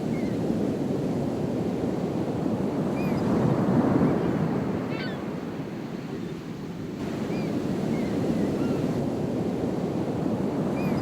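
Ocean surf washing steadily, with wind buffeting the microphone, and short high chirps every few seconds.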